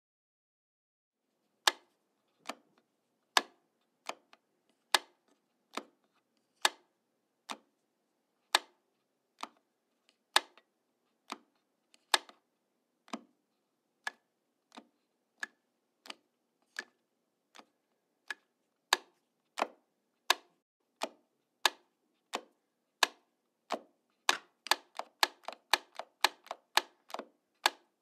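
A light switch flipped on and off over and over: sharp single clicks a little under a second apart, alternating louder and softer. Near the end they crowd into a quick run of flicks.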